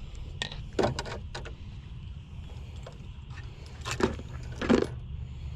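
Knocks and rattles of gear being handled in a boat: a couple of sharp clatters about a second in and two louder knocks around four to five seconds, over a steady low hum.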